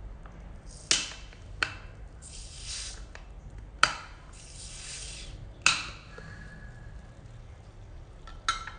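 Metal bottle opener working against the crown cap of a Corona Extra glass bottle: five sharp metallic clicks, the loudest about four seconds in, with two short spells of hissing between them.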